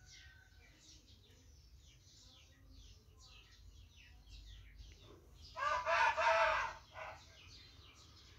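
A rooster crows once, a little over a second long, about five and a half seconds in. Small birds chirp over and over throughout.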